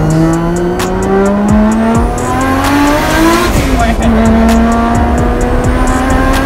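Nissan Cefiro A31 drift car's turbocharged engine pulling hard, heard from inside the cabin. The revs climb for about three and a half seconds, drop sharply with an upshift, then climb again more slowly.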